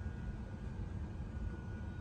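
Steady low rumble of an Airbus A380 cabin's air system on the ground, with a faint thin high tone over it.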